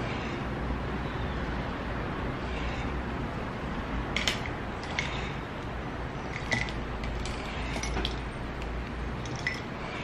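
Plastic highlighter pens clicking and clacking against each other as they are picked up and gathered in a hand: about half a dozen light taps in the second half, over a steady background hiss.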